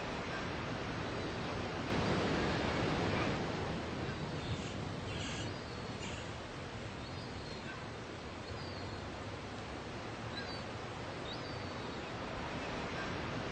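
Surf washing up on a sandy beach, a steady rush of water that swells for a second or so about two seconds in. Short high bird chirps come every few seconds.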